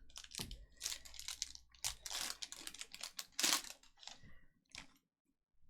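A quick, irregular run of clicks and rustles from hands at work, stopping for a moment about five seconds in.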